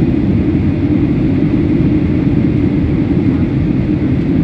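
Steady, even low noise of an airliner cabin in flight: engine and airflow noise heard from inside the plane.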